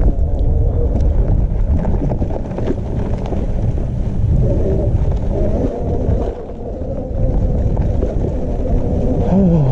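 Super 73 electric bike being ridden, with a heavy low rumble of wind on the microphone and a faint steady whine from the motor partway through and again near the end.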